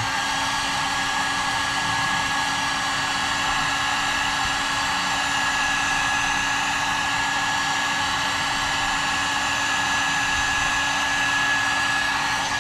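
Cheap Harbor Freight heat gun running steadily, its fan blowing with a steady high whine over a low hum.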